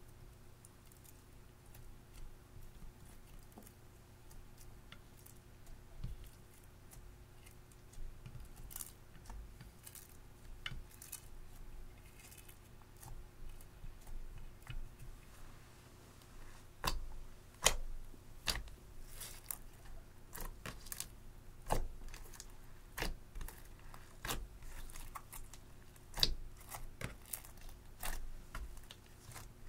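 Clear slime loaded with crushed coral eyeshadow and lipstick being poked, stretched and folded by hand, giving scattered sticky clicks and pops. They come thicker and louder from about halfway through.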